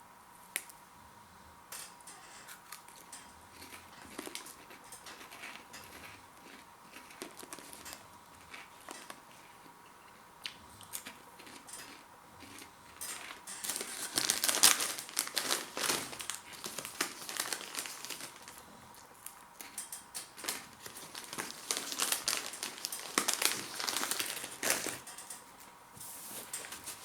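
Plastic snack packet crinkling and rustling as it is opened and handled: scattered small crackles at first, then two longer spells of loud crinkling, one about halfway through and one near the end.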